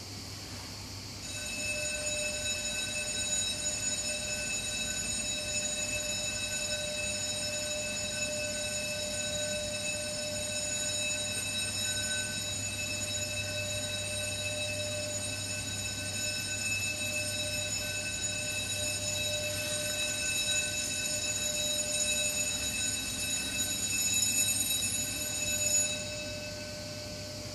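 A steady ringing tone with several higher overtones, held without change and cutting in about a second in and off suddenly near the end.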